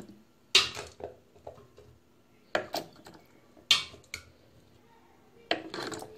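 Several sharp, irregularly spaced clinks and knocks of kitchen dishes and utensils being handled on a tabletop.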